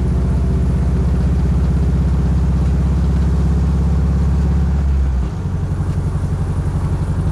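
Dune buggy's engine running while driving, heard from on board. About five seconds in, the engine note drops lower and turns to an even pulsing beat.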